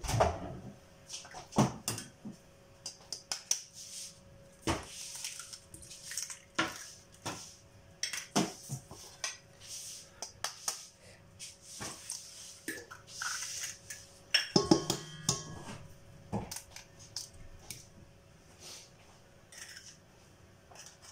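Eggs cracked one after another against the rim of a stainless steel mixer bowl: scattered sharp taps and clicks of shell on metal, with a quick cluster of taps about two-thirds of the way through.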